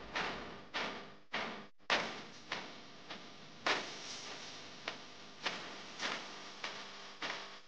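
A fairly even series of sharp knocks, about one and a half a second, each dying away over a fraction of a second.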